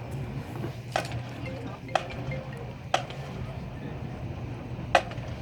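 Sharp clicks at an even pace of about one a second, a steady tempo being kept, over a low steady hum and faint crowd murmur.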